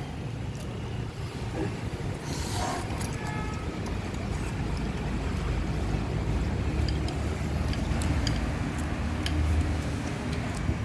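Steady low outdoor rumble, with a few faint clicks and a brief hiss about two and a half seconds in.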